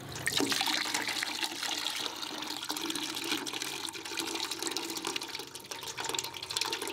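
Chopped raw liver being washed by hand in water in a plastic basin: irregular sloshing and wet squelching as the hand stirs and presses the pieces.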